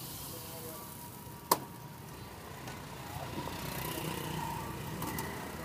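One sharp metal clank about one and a half seconds in, a metal ladle knocking against the wok, over a steady hum of street traffic.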